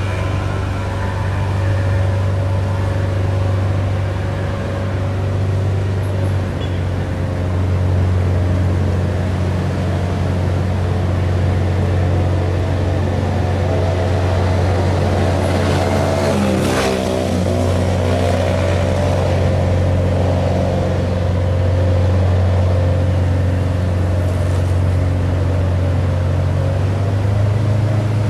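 Steady low drone of a boat's engine, with a brief swell of noise about two thirds of the way through.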